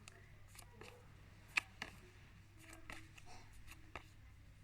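Quiet room tone with scattered small clicks and rustles of cards being handled, one sharper click about a second and a half in.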